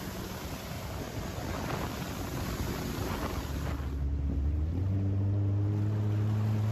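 Jet ski running on a river: the rush of wind and spray over its engine for the first few seconds. About four seconds in the rush drops away as the craft slows, and the engine's steady low hum comes through. About a second later it steps up to a higher, slightly louder steady note.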